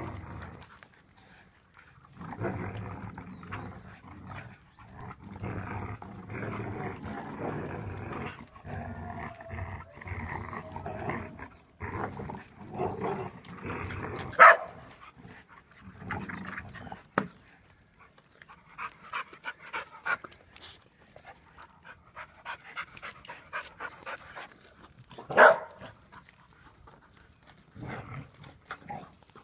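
Dogs playing tug-of-war, growling in play as they pull on a toy, with a steady rumble for the first ten seconds or so. Two single loud, sharp barks stand out, about halfway through and near the end.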